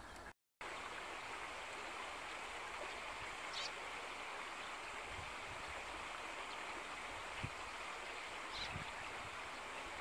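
Steady rush of flowing stream water, with two brief high bird chirps, one about three and a half seconds in and one near the end. The sound drops out completely for a moment about half a second in.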